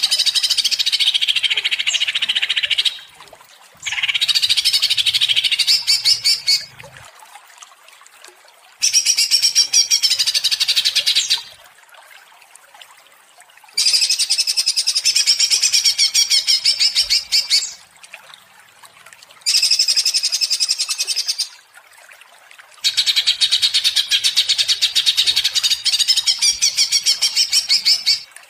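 Cucak ijo (greater green leafbird) singing agitated, rattling 'ngentrok' song: six bursts of fast, rapidly repeated high notes, each two to four seconds long, with short pauses between them.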